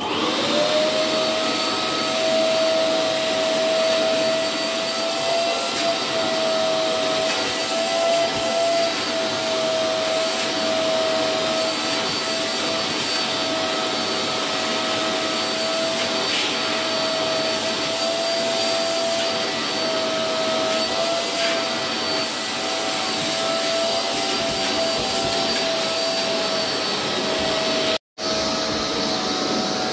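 Small canister vacuum cleaner switched on, its motor spinning up in a split second and then running steadily with a high whine over the rush of air. The sound cuts out for an instant near the end.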